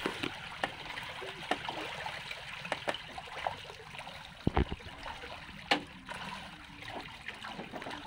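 A large school of milkfish thrashing at the water surface in a feeding frenzy: a steady churning, trickling patter of water with many small sharp splashes, and two louder splashes about halfway through.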